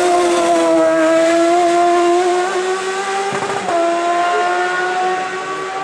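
Hill-climb race car engine at high revs under hard acceleration. Its pitch climbs steadily, cuts briefly for a gear change about three and a half seconds in, then picks up slightly lower and climbs again.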